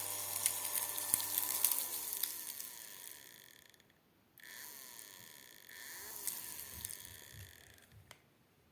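Homemade mini desk vacuum cleaner's small motor and fan running with a hissing rush of air and a few sharp ticks, its pitch falling as it winds down before it cuts off about four seconds in. It is switched on again about half a second later and runs until near the end, where a click is heard.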